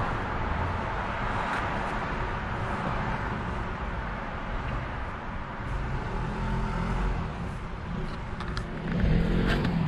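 Steady road-traffic noise, a low rumble under an even haze, with a few light clicks near the end.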